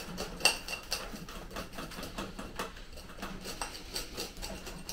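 Irregular light clicks and taps, some with a short metallic ring, from hand tools knocking and scraping while working at a dense, root-bound root ball.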